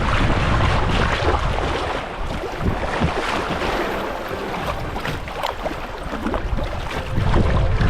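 Water splashing and rushing around a kayak on a river, with wind buffeting the microphone at the start and again near the end.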